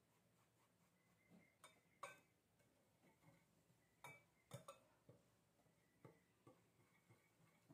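Faint, sharp clinks of a metal sieve and a wire whisk knocking against a glass mixing bowl, about a dozen irregular ticks, as flour is sifted and whisked into beaten egg.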